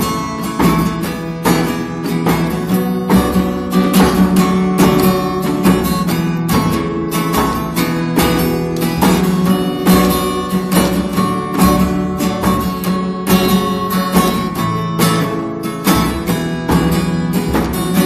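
Instrumental music led by acoustic guitar, playing many quick notes.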